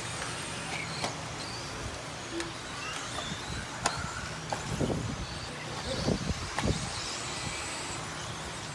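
Electric 2WD stock RC buggies racing on a clay off-road track: a steady mix of small-motor whine and tyre noise, with a few sharp clicks.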